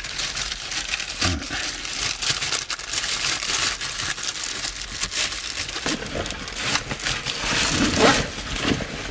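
Clear plastic bag crinkling and rustling as it is handled, with a louder rustle near the end.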